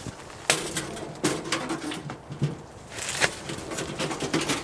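Sharp clicks and light metallic knocks as the door of a small sheet-metal wood stove is handled and shut, among rustling.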